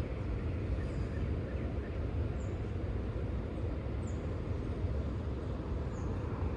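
Steady low rushing rumble of fast water running below a dam with its spillway floodgates open, with a few faint, short high chirps over it.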